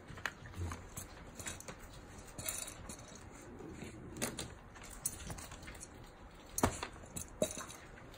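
Schnauzer eating dry kibble from a steel bowl: irregular crunches and small clinks of kibble against the bowl, the loudest clinks near the end.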